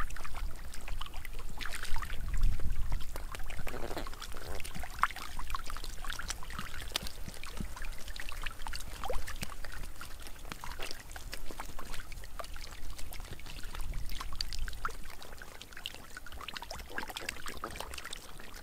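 Fish thrashing in shallow muddy water: a steady run of irregular wet splashes and slaps.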